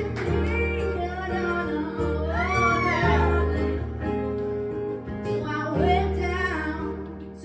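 A woman singing with live keyboard and acoustic guitar accompaniment, holding long notes with vibrato over steady low chords.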